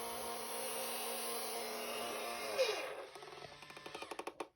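Small electric motor inside a broken-spine-girl Halloween animatronic running with a steady buzzing hum, then winding down with a falling pitch about two and a half seconds in. Faint light clicking follows.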